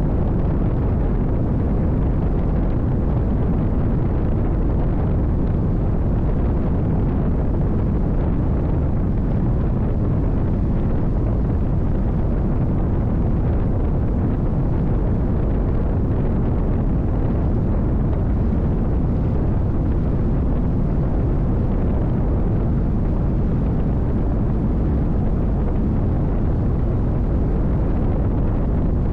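Steady, loud onboard rumble of a NITRA 22 race boat under way at speed: its V8 engine running, mixed with wind and water rushing past the hull.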